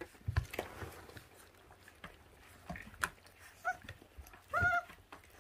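Twenty-four-day-old puppies gnawing and tearing at raw meat and rib cartilage, with scattered soft chewing clicks. A puppy gives two short high whines near the end, the second a little longer.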